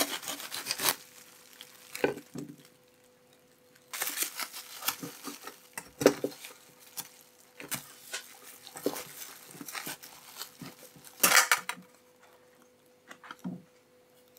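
A knife sawing through a cling-film-wrapped sandwich on a wooden cutting board, the plastic wrap crinkling under rapid strokes at the start and again about four seconds in. Then the wrapped halves are handled and set into a stainless-steel lunch box, with a few light knocks and a short crinkly burst near the end.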